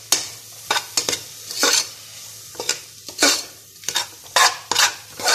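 A spoon stirring and scraping a frying masala of tomato, onion and chilli in a metal pressure cooker, with short scrapes roughly twice a second over a faint sizzle.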